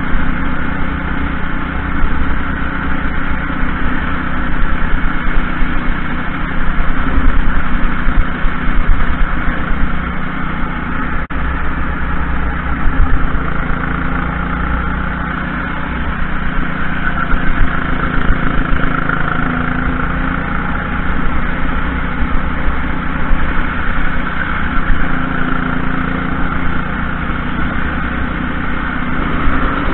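Racing kart engine running at speed, heard from on board the kart. The pitch rises and falls through the lap.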